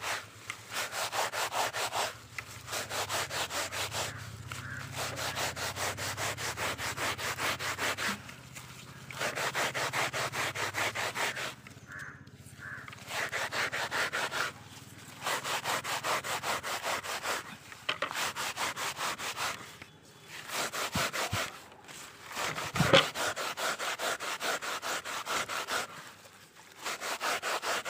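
Hands grinding fresh padathali vine and leaves against a rough stone slab, quick back-and-forth scraping and rubbing strokes in bouts of a few seconds with short pauses. The leaves are being crushed with a little water into a slimy paste for washing hair. One sharper knock comes about three-quarters of the way through.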